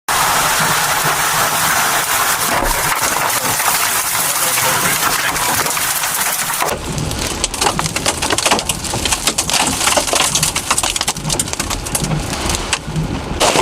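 Hurricane storm noise: heavy rain and wind as an even, loud hiss. About six and a half seconds in it switches abruptly to a rougher noise with a low rumble and many sharp crackles.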